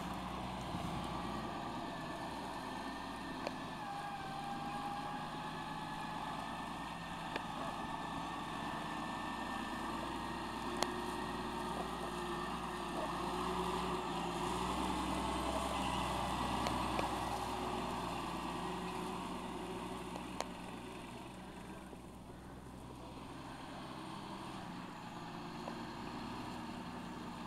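Fendt tractor engine running steadily under load, pulling a Kaweco slurry tanker with a rear incorporation implement across a stubble field. The sound swells in the middle and dips about three quarters of the way through as the rig passes. A few sharp clicks are heard along the way.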